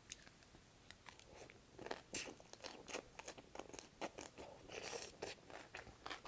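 Close-up chewing of crunchy cucumber from cold cucumber soup: a run of irregular crisp crunches starting about a second in, the loudest around two and three seconds in.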